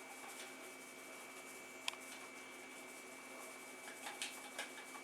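Faint taps and clicks of a seasoning shaker being shaken over raw deer meat, with one sharper click about two seconds in and a few small ticks near the end, over a faint steady high hum.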